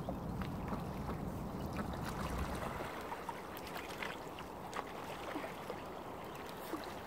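Lake water lapping and splashing softly at the shore, with many small ticks and splashes, under a low rumble that fades about three seconds in.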